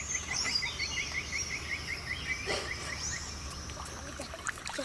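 Rainforest wildlife at dusk: a rapid series of short rising chirps, about five a second, stops about three seconds in. Higher whistled calls and a low steady hum sound beneath it.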